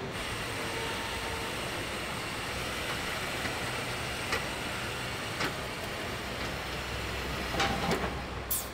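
Tractor assembly-hall background noise: a steady hum with scattered sharp clicks and knocks, and a short cluster of them followed by a brief hiss near the end.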